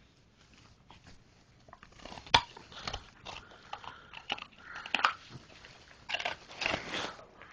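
German Shepherd chewing a cow knuckle bone: irregular crunches and cracks of teeth on bone, with one sharp loud crack about two and a half seconds in and a denser run of crunching near the end.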